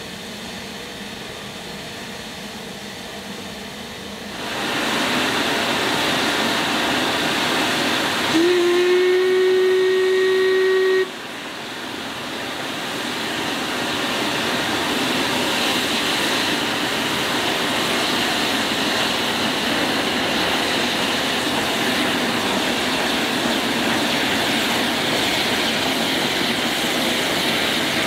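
Narrow-gauge steam tank locomotive getting under way with its train: about 8 seconds in, one steady whistle blast lasting roughly two and a half seconds cuts off sharply, with a loud continuous hiss of steam around it, from the open cylinder drain cocks as it works towards the camera.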